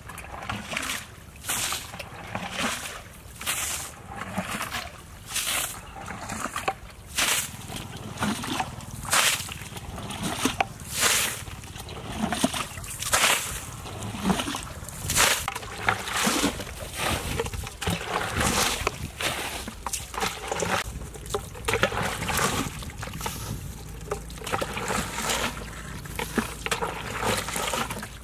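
Wet mud squelching and splashing as someone digs in it, in short irregular bursts about once or twice a second.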